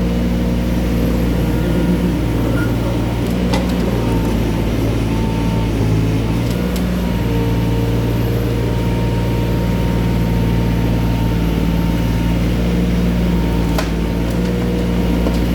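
Construction machinery engine running steadily under a working load, with two sharp knocks, one a few seconds in and one near the end.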